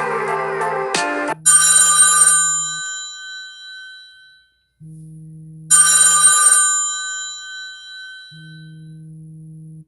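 Samsung Galaxy S25 Ultra ringtone playing: a bright bell-like chime struck about every four seconds and ringing out over a low steady tone. In the first second or so the gliding, slide-guitar-like notes of another ringtone end.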